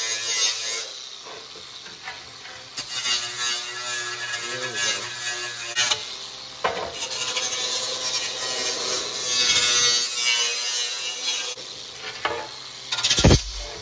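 Angle grinder with an abrasive disc grinding the cut edge of a Subaru 2.2 oil pan's stamped steel to bare metal, ready for welding: a scraping grind in on-and-off bursts over the motor's whine. A single sharp knock near the end.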